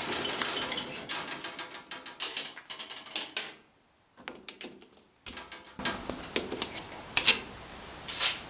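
A machine hum dies away at the start, followed by rapid metallic clicking and rattling with short breaks. Two sharp metal knocks come near the end, the first the loudest.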